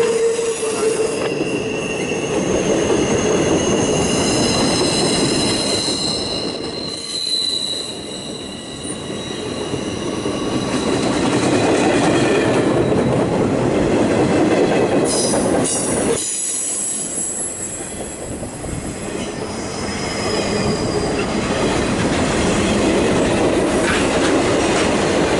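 Train cars of the Ringling Bros. circus train, flatcars then passenger cars, rolling past on the rails with a steady wheel rumble, overlaid with thin, high wheel squeal that comes and goes.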